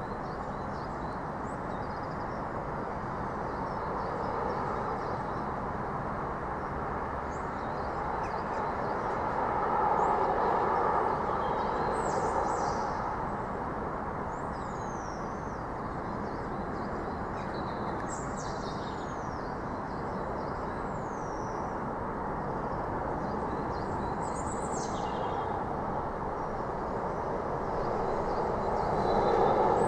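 A steady outdoor rumble that swells about ten seconds in and again near the end, which the uploader presents as a disorientating low-frequency noise. Birds give short, high, falling chirps over it now and then.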